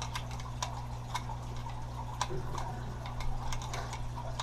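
Light metallic clicks and taps at irregular intervals from an 8 mm wrench working nylon locking nuts off an engine mount bracket, over a steady low hum.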